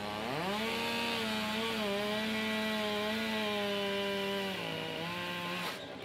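Two-stroke chainsaw revving up quickly to high speed and running through a cut. Its pitch dips a little about four and a half seconds in, and it stops shortly before the end.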